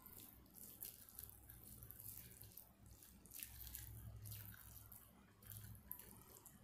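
Faint, wet squishing and crackling of fingers mixing curry-soaked rice on a plate, in irregular bursts, over a low steady hum.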